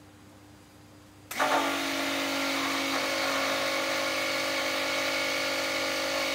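Handheld immersion (stick) blender switched on about a second in and running steadily with a motor whine, its blade submerged in oil and lye solution, blending the soap batter toward trace.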